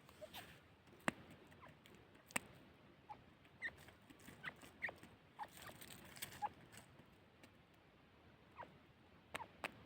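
Teetar (partridge) giving faint, scattered short squeaky chirps, some falling in pitch, with a few sharp clicks among them.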